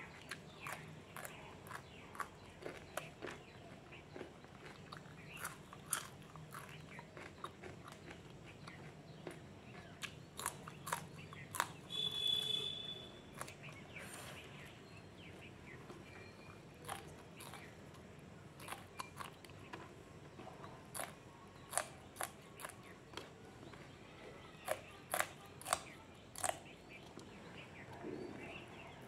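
Close-up crunching and chewing of raw green chillies: sharp, crisp crunches one after another between quieter chewing, with a quick run of louder crunches about 25 seconds in.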